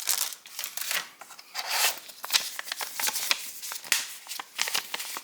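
Close-up rustling and crinkling of paper and packaging from a phone box being handled and sorted, with dense irregular crackles and small clicks.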